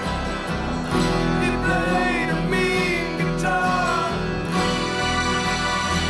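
Background music with guitar.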